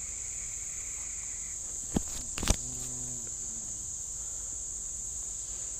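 Steady high insect chorus droning without a break. Two sharp knocks about two and two and a half seconds in, the second followed by a short low murmur.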